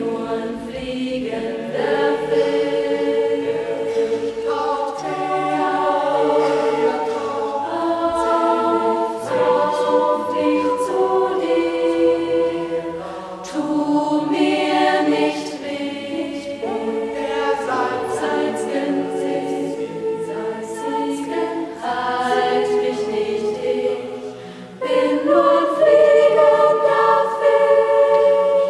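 A choir of mixed women's and men's voices singing in harmony, held notes moving from chord to chord. It swells to its loudest on a final held chord near the end, which then stops.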